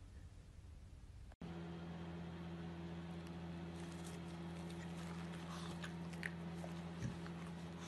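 A small dog chewing food, with faint crunching clicks from about halfway through and a couple of sharper ones near the end, over a steady low hum.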